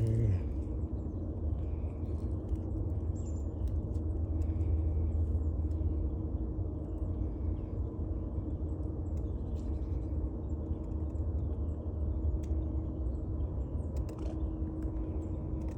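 Steady low outdoor rumble with a faint hum, and faint short bird chirps scattered through it.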